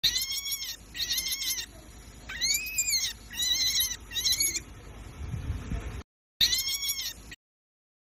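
Rabbit squealing: about six high-pitched cries, each rising and then falling in pitch and under a second long, with a low rumble about five seconds in.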